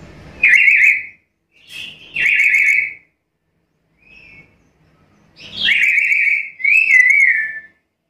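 Black-capped lory calling: four loud, shrill whistled screeches, each under a second long, with a faint short call between the second and third. The last call wavers up and down in pitch.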